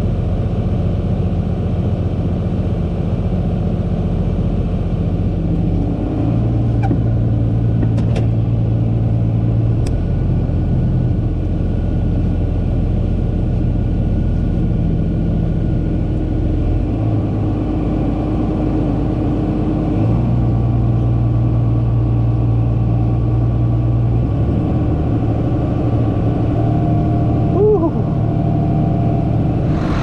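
John Deere 4640 tractor's diesel engine running under load while towing a stuck self-propelled sprayer free by chain, the engine note stepping up and down several times as revs and load change. A short squeak near the end.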